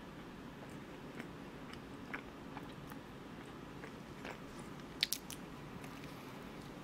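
A person chewing a cream-filled croissant, with soft mouth clicks throughout and a bite into the flaky pastry a little after five seconds that gives a quick cluster of crisp crackles, the loudest sound.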